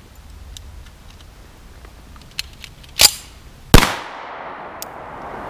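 A few light metallic clicks, then two sharp loud reports from a Colt Government model pistol less than a second apart, the second the loudest and trailing off in a long echo.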